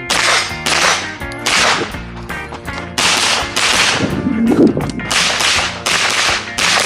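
A string of gunshots from a pistol-caliber carbine, about eight shots fired at an uneven pace during a practical shooting stage, over background music.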